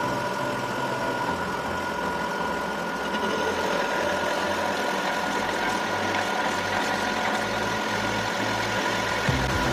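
Lathe running steadily, with a constant whine over a broad hiss and a low, shifting hum.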